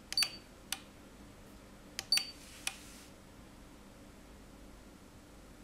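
Buttons pressed on a Sonel MRP-200 RCD tester: a handful of light clicks in two groups about two seconds apart, two of them with a short high beep, as the sinusoidal AC test mode is selected and started.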